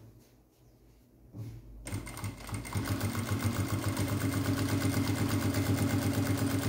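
Industrial straight-stitch sewing machine sewing a test seam with its bobbin case tension freshly tightened. After a quiet second or so it speeds up and then runs at a steady, fast stitching rhythm.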